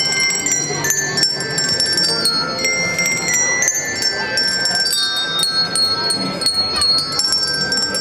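Bells rung as a tune by a group of bell ringers: many bells of different pitches struck in quick succession and left ringing over one another.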